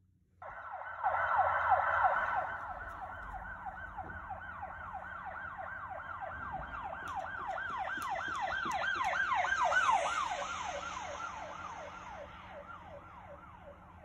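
The iMovie "Police Siren" sound effect played through an iPad's speaker: a fast yelping siren sweeping up and down about three times a second. It starts suddenly, runs for about thirteen and a half seconds and fades out near the end.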